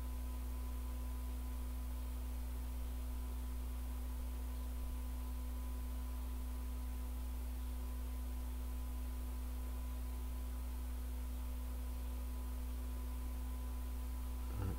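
Steady low electrical hum with faint steady tones above it, unchanging throughout.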